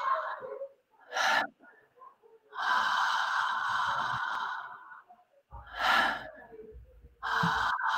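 A woman doing Transformational Breath connected breathing through an open, relaxed mouth. Long drawn-in inhales of about two and a half seconds alternate with short, relaxed exhales of under half a second, with no pause between them, twice over.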